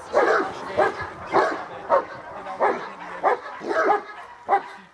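Great Dane barking in a defence drill, lunging against its leash: a run of about eight deep barks, nearly two a second.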